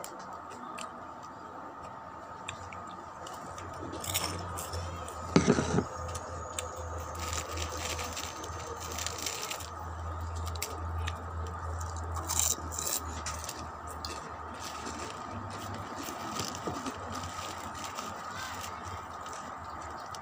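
Crinkling plastic bag of chicharon (fried pork rinds) being handled, with irregular crackles and crunches; the loudest crunch comes about five seconds in.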